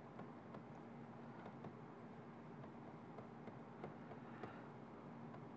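Near silence: a faint steady hum with scattered soft ticks of a stylus tapping a writing tablet.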